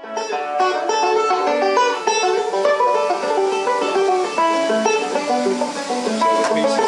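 Background music: fast plucked banjo picking in a bluegrass style.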